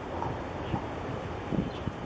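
Wind buffeting the microphone over a low steady rumble, with a few brief gusty bumps.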